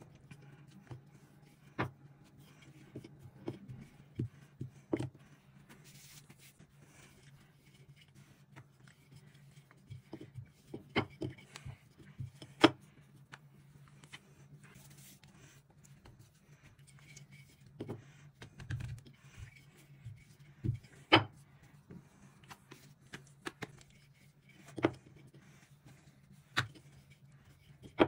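Intermittent light clicks and knocks of things being handled, over a low steady hum. Two sharper knocks stand out, one near the middle and one about three quarters of the way through.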